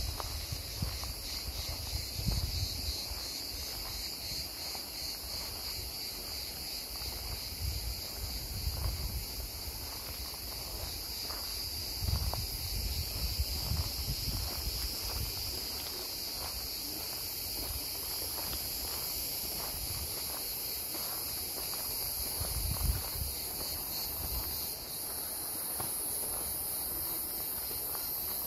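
Cicadas droning steadily in a high, finely pulsing chorus, with irregular soft low thuds of footsteps on the path.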